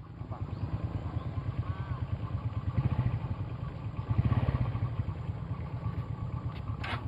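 Small motorcycle engine running at low revs, with an even, rapid low pulsing.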